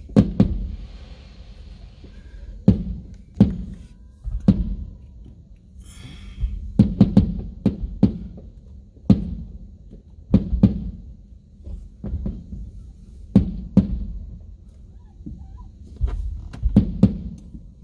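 Fireworks bursting: an irregular run of sharp booms, roughly one a second and sometimes two in quick succession, with a low rumble between them.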